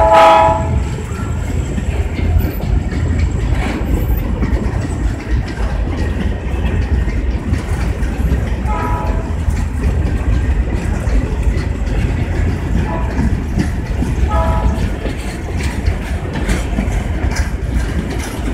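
Long freight train of empty grain hopper cars rolling past, with a steady rumble and wheels clicking over rail joints. Short horn blasts come from the EMD GT22CW locomotive up ahead: the loudest right at the start, and fainter ones about halfway through and twice more near the two-thirds mark.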